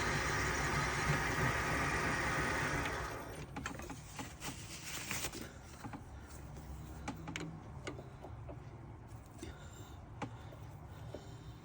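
Chinese mini lathe running steadily, then shutting down about three seconds in. Light clicks and knocks of metal parts and tools being handled follow.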